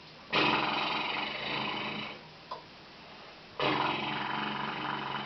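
Two loud, rasping snores, each about two seconds long, with a pause of about a second and a half between them.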